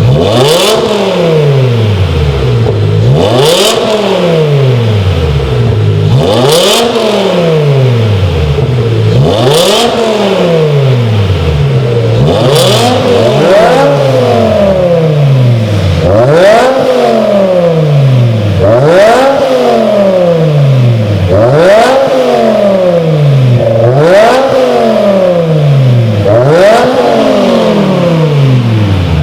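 BMW M6's 5.0-litre V10 engine being revved repeatedly through its exhaust, blipped up and let fall back about every two and a half seconds in a steady rhythm.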